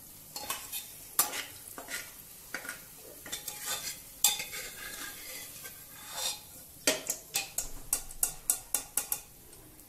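Perforated metal spoon scraping and clinking against the inside of a pressure cooker while fried onions are lifted out of hot oil, over a faint sizzle of the oil. Near the end comes a quick run of clinks, about four a second.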